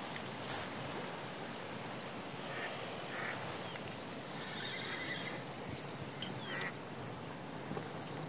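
Steady wind and water noise, with a few short, faint animal calls scattered through it, the strongest about four to five seconds in.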